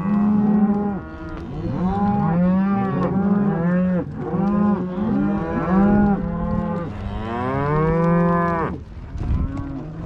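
A herd of beef cows and calves mooing, many calls overlapping one after another, with one long drawn-out moo near the end.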